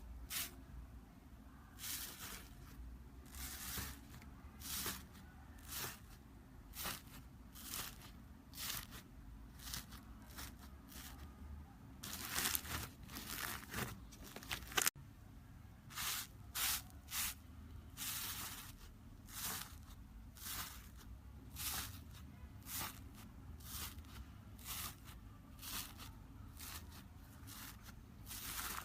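Slime being pressed and stretched by hand. Each press gives a short, crackly, crinkling burst, about one a second, with a longer run of crackling a little before the middle.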